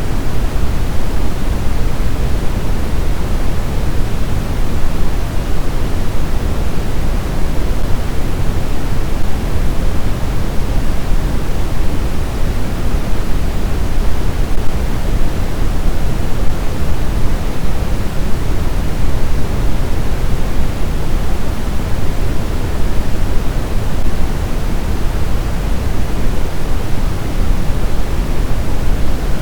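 Steady white noise for sleep: a constant, even rush with no changes, fuller in the low end than a thin hiss.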